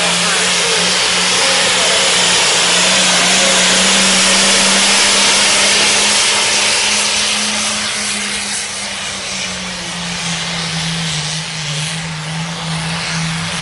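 Diesel pulling tractor's engine at full throttle under heavy load, hauling a weight-transfer sled down the track. It is a loud, steady drone whose pitch sags a little and fades somewhat about two-thirds of the way through.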